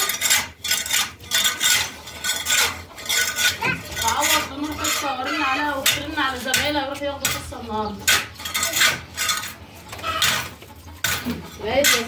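A metal hoe scraping and knocking across a dirt coop floor in repeated strokes, with birds calling over it.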